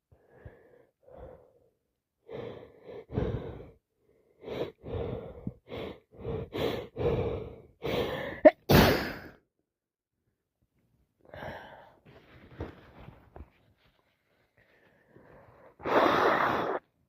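A person with a cold and allergies takes a run of short, building breaths that break into a loud, wet sneeze about eight and a half seconds in. A few softer breath sounds follow, then another loud burst of breath near the end.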